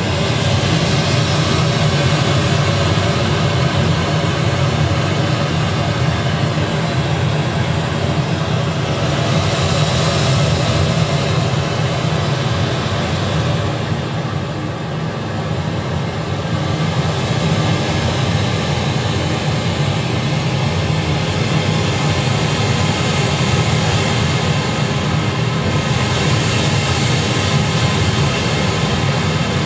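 Synthesized ocean surf from an analog modular synthesizer: pink noise through a low-pass state-variable filter and a VCA, with a low continuous roar that swells and ebbs slowly as a slewed sample-and-hold voltage moves the filter cutoff and the gain. Brighter washes come about ten seconds in and again near the end.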